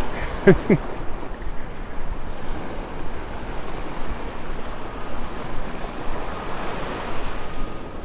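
Surf washing steadily onto a sandy beach. About half a second in there is a brief, short voice sound.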